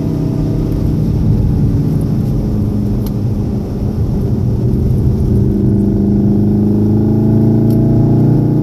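Onboard sound of a 2014 VW Golf VII R's 2.0-litre turbocharged four-cylinder engine, heard inside the cabin over tyre noise on a wet track. The engine note drops as the car slows for a bend about four seconds in, then rises steadily as it accelerates out.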